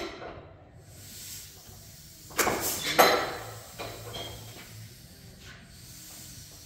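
Old crawler tractor engine being turned over slowly by hand while the cylinders are checked one by one. A short click, then a loud sliding, scraping rush of noise about two and a half seconds in that ends abruptly, followed by a few faint knocks.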